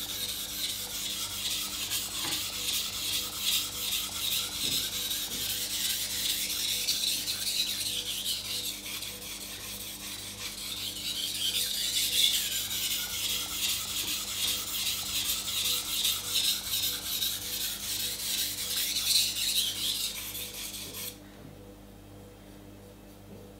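Steel kitchen knife blade being stroked back and forth across a wet 1000-grit water stone: a gritty, rhythmic scraping of edge-on-stone sharpening, stopping near the end as the blade is lifted off the stone.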